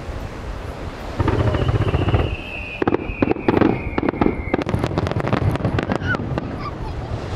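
Aerial fireworks shells launching and bursting: a low boom about a second in, then a whistle whose pitch slowly falls, over a quick run of sharp bangs and crackles.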